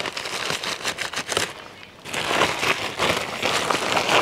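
Woven plastic sack of compost rustling and crackling as it is untied and pulled open: a run of sharp crinkles, a brief lull about a second and a half in, then a denser, louder rustle.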